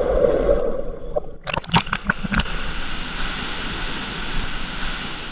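Flowing water, with a handful of splashes about a second and a half in, then a steady even rush of water.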